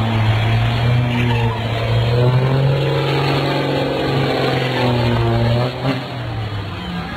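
Diesel truck engine held at high revs through a tyre-smoking burnout, its note bending slightly up and down, then dropping off about six seconds in.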